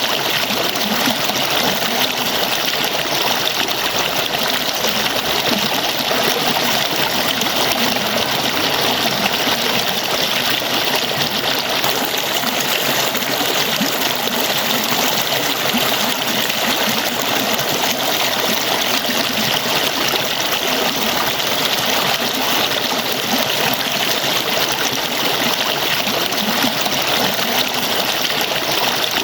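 Water falling and splashing in a steady, unbroken rush, with a bright hiss.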